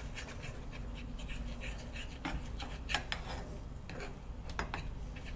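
A metal teaspoon scraping and tapping against a small Teflon-coated frying pan as quail eggs are whisked in it: a run of uneven scrapes and clicks.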